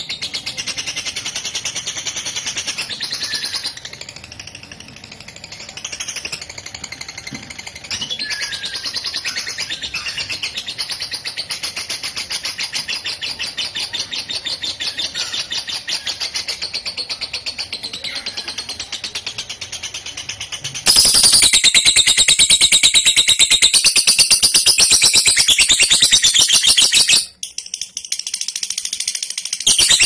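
Lovebird giving its long ngekek song, a fast, unbroken, high-pitched chatter of rapidly repeated notes. It grows much louder about two-thirds of the way in, breaks off briefly near the end, then resumes.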